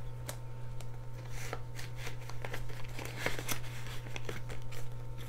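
Paper banknotes rustling and crinkling, with short crisp ticks, as they are handled and slid into a clear plastic pocket of a ring binder.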